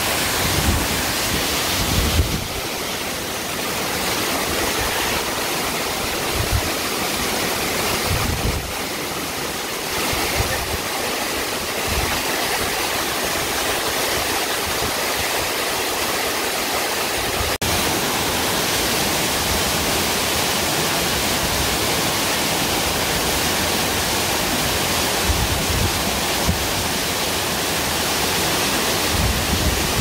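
Miin Falls, a waterfall about 50 m high, pouring into the pool at its foot: a steady, dense rush of falling water, with a few brief low bumps on the microphone.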